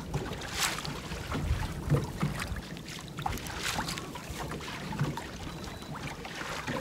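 Low background noise aboard a small fishing boat: wind on the microphone and water against the hull, with a few light knocks and clicks.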